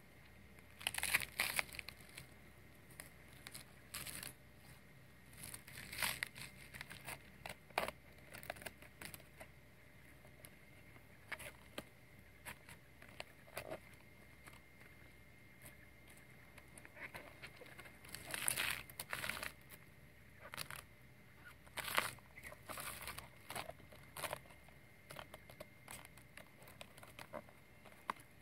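Fresh banana-stem sheath being pressed and wrapped by hand around a whole fish: irregular crackling and crinkling, with a few louder clusters of crackles now and then.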